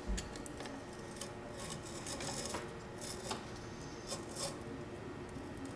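An X-Acto knife blade cutting and scraping through scooter grip tape: a series of faint, short, scratchy strokes at uneven intervals.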